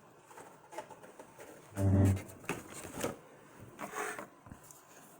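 Handling noises: a few light knocks and clicks as a small model is moved about, with one short, low, steady hum about two seconds in, the loudest sound.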